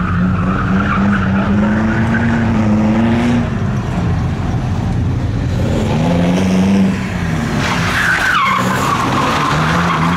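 Car engine revving up and easing off several times while the tyres squeal through a slide at the start and again about eight seconds in, the second squeal falling in pitch.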